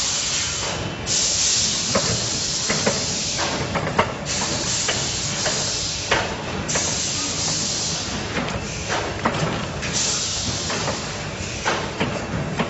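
Tyre building machine working as rubber sheet is laid onto its drum: a loud hiss that comes and goes in stretches of a few seconds, with scattered sharp clicks and knocks.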